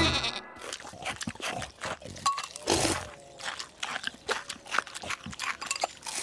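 Music cuts off just after the start, then a man eating cereal from a bowl with a spoon: many small clicks of spoon on bowl with wet chewing and slurping.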